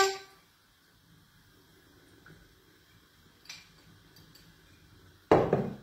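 Quiet kitchen with a faint click about three and a half seconds in, then a single loud knock near the end, which is the glass oil bottle being set down after oil was poured into the frying pan.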